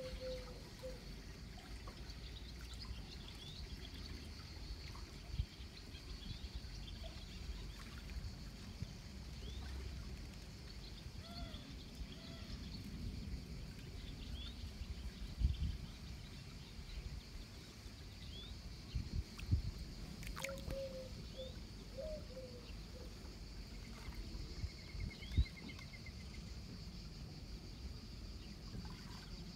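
Outdoor summer ambience: a steady high insect drone with scattered short bird chirps over a low rumble, broken by a few soft bumps.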